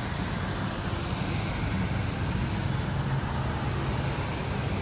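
Steady street traffic on a wet city road: a low rumble of car and motorbike engines under an even hiss.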